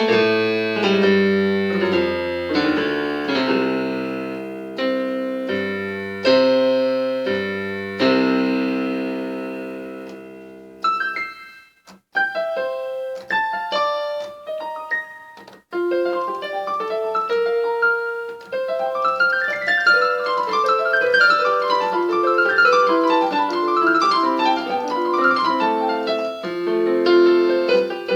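Solo piano playing: slow, full chords that ring and fade over the first ten seconds, a brief pause, then lighter notes building into repeated rising-and-falling runs in the upper register.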